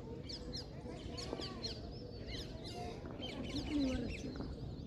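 Many birds chirping, a steady stream of short, quick chirps over a background of distant voices.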